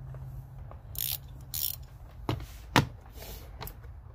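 Chrome GearWrench XL double-box ratcheting wrench being ratcheted in short, quick buzzes of fine clicks. Two sharp metal clinks of the steel wrench knocking against other wrenches a little past two seconds in, the second the loudest.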